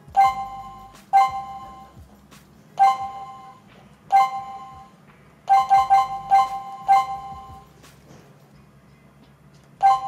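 Key-press beeps from a CS108 WiFi/GSM alarm panel's touch keypad, one short two-tone beep per press. Four single beeps a second or so apart, then a quick run of five about halfway through, and one more at the end.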